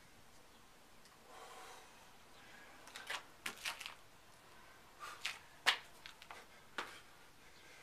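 Sneakers scuffing and hands slapping on a concrete patio during burpees: a few short, sharp scrapes and slaps as the feet kick back into a push-up position and jump back in. A softer rasp comes about a second and a half in.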